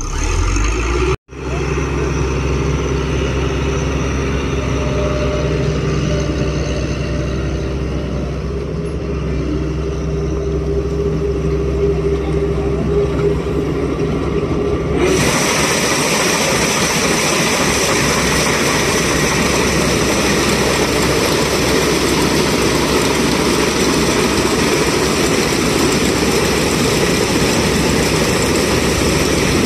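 Preet 949T combine harvester running steadily while cutting paddy, a constant engine drone with even low tones, cut off for an instant about a second in. About halfway it turns into a louder, even rushing noise from close by the cutter bar and reel.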